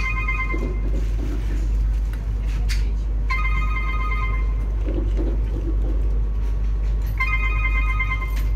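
Steady low rumble of an ES2G "Lastochka" electric train running at speed, heard from inside the carriage. Over it a mobile phone's ringtone sounds three times, each ring about a second long and about four seconds apart.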